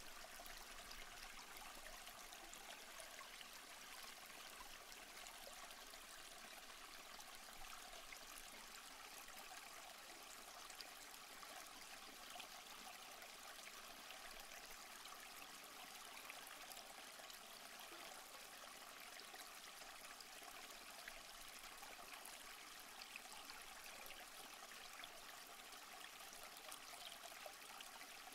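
Near silence: a faint, steady hiss of background noise with no distinct events.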